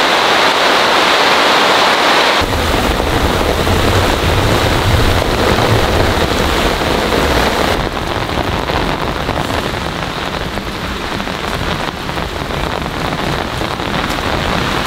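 Heavy rain pouring steadily in a dense, even hiss. About two and a half seconds in the sound changes abruptly to a deeper, drumming downpour, and it shifts again near eight seconds.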